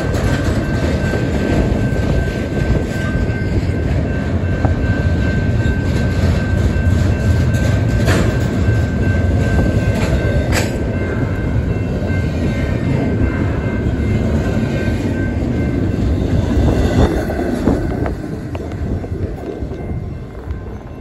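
BNSF intermodal freight train cars rolling past on the rails: a steady heavy rumble of wheels with a thin steady high tone above it and a couple of sharp clicks. The noise falls away near the end as the last car goes by.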